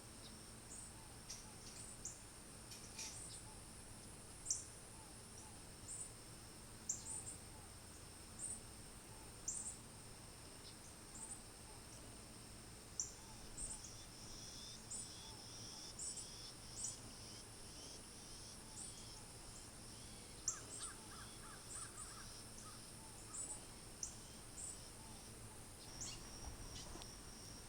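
Steady high-pitched insect trilling, with short, sharp bird chirps repeating roughly once a second over it and a brief quick run of lower notes about two-thirds of the way through.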